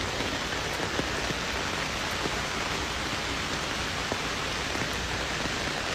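Rain falling steadily, with a few faint sharp drip ticks.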